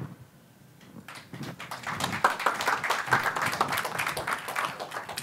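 Audience applauding: dense clapping that builds from about a second in and cuts off suddenly near the end.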